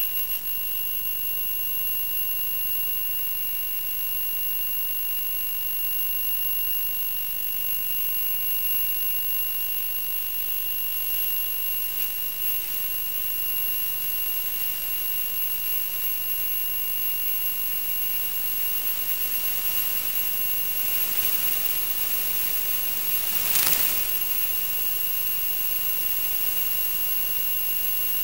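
Steady hiss with two constant high whining tones and a brief louder crackle of static about 23 seconds in. This is the analog FPV video link's audio channel as recorded by the DVR: receiver static rather than the plane's motor.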